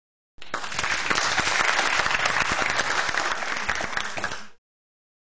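A crowd applauding, many hands clapping at once; it cuts in about half a second in and stops abruptly near the end.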